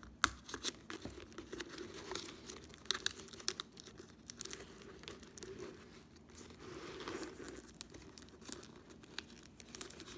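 Flexible dryer vent duct crinkling and crackling as it is handled while a hole in it is widened, with irregular sharp clicks, the sharpest just after the start.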